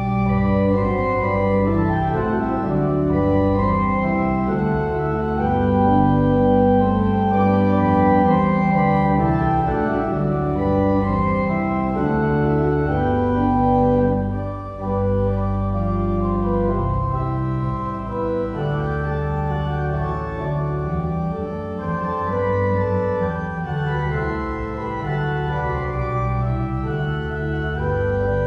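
Organ music: sustained chords that change every second or so over held low bass notes.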